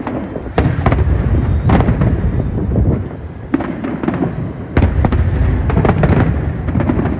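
Fireworks going off: a dense run of bangs and crackles over a steady low rumble, with the sharpest reports about half a second in, around a second and three-quarters, and just under five seconds in.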